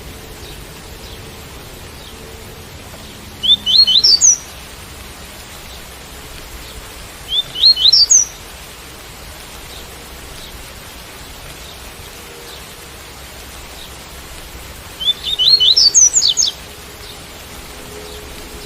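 Double-collared seedeater (coleiro) singing its 'tui-tui' song three times, each a short phrase of quick rising notes, over a steady hiss of rain.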